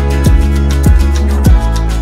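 Background music with a steady kick-drum beat, a little under two beats a second, over sustained bass notes and light ticking cymbals.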